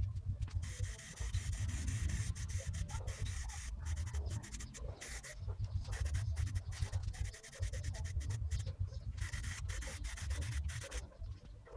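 Abrasive hand rubbing on the steel tool box, in uneven strokes broken by a few short pauses.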